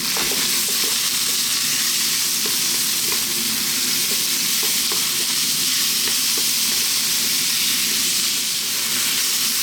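Chicken, carrots and celery stir-frying in oil in a very large wok on maximum heat: a steady sizzle with a few light clicks.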